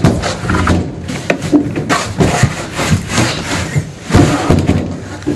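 A person squeezing through a cat door in a wooden door: irregular knocks, bumps and scraping as the body rubs and bangs against the door and its flap.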